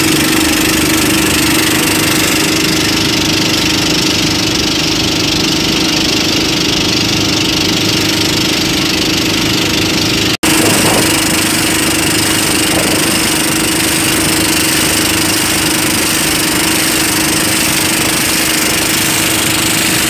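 Motor bangka's engine running steadily at cruising speed, one even droning tone, with water rushing along the hull and wind noise. The sound cuts out for an instant about halfway through.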